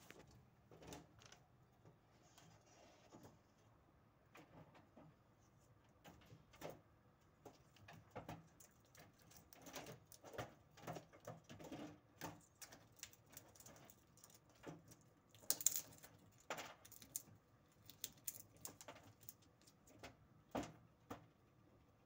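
Faint, irregular clicks and taps of a Eurasian red squirrel gnawing at a large pine cone and pulling its scales off on a windowsill, with a few sharper knocks past the middle.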